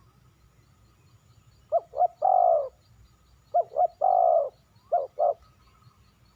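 Spotted dove cooing: two short coos followed by a long, slightly falling coo, given twice, then two more short coos near the end.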